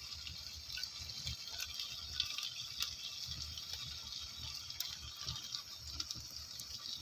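Cream sauce simmering in a frying pan over a wood fire: a steady bubbling hiss, with scattered sharp crackles from the burning wood.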